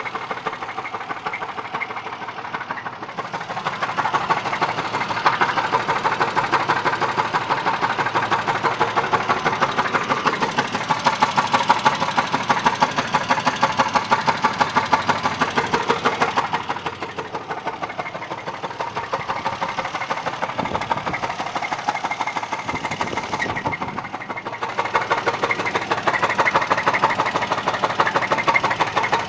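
Engine running at idle with a fast, regular knock, louder and softer in stretches. The cause of the knock is not known.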